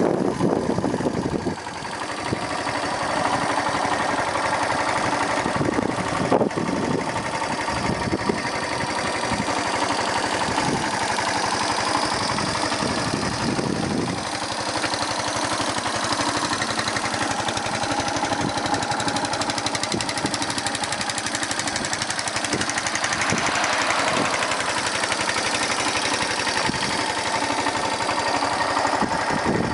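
1998 Yamaha SR125's single-cylinder four-stroke engine idling steadily.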